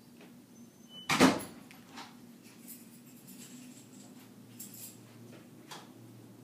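A single loud, sharp clack about a second in, followed by faint rustling and small clicks.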